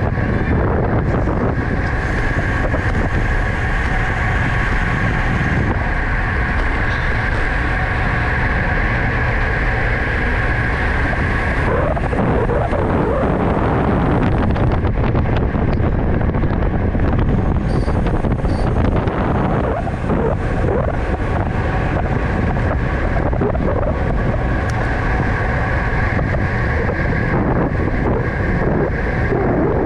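Wind rushing over the camera microphone of a rider racing a bicycle at speed, loud and continuous. A steady whir runs underneath it, fading in the middle of the stretch and returning near the end.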